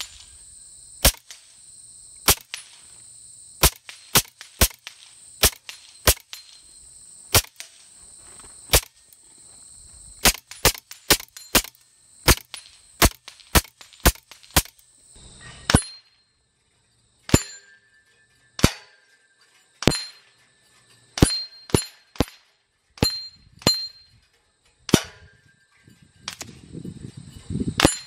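LCS SK-19 .25-calibre PCP air rifle firing single shots in a long string, at first about one a second, then in quicker bursts. In the later shots the steel targets ring briefly after the hits.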